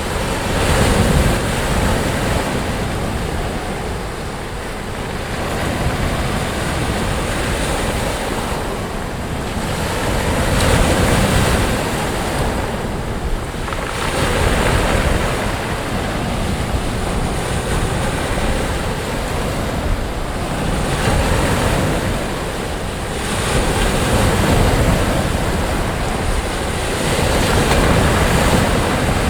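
Waves breaking and washing up on a sandy beach, a continuous surf hiss that swells and eases every few seconds, with some wind on the microphone.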